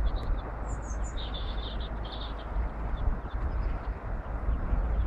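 Mallard ducklings peeping: short, high peeps repeated throughout, coming thick and fast for a second or so near the start, over a low rumble.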